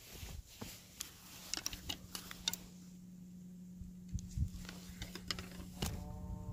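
Handling noise picked up by a smartphone mounted on a hunting bow: scattered light clicks and rustles as the bow is moved and swung around, over a low steady hum.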